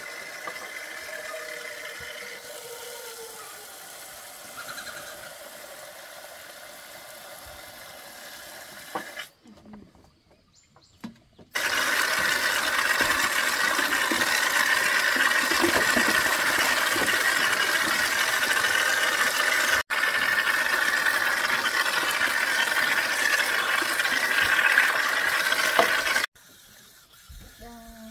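Water splashing and swishing in a plastic basin as leafy greens are washed by hand. It is quieter for the first several seconds, drops out briefly, then comes in loud and close for about fifteen seconds before cutting off suddenly.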